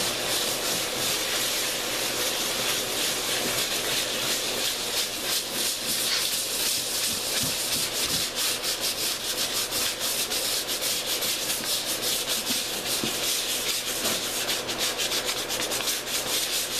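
320-grit wet/dry sandpaper on a rubber sanding block, wet sanding cured primer on a canvas canoe hull by hand: a steady scratchy rasp of rapid back-and-forth strokes.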